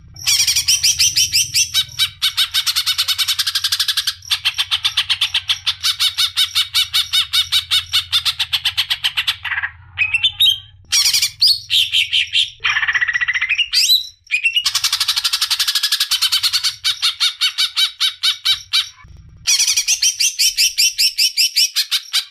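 Songbird singing long trills of fast, evenly repeated high notes in several bursts a second or two apart, with a stretch of shorter varied notes and a rising whistled glide in the middle.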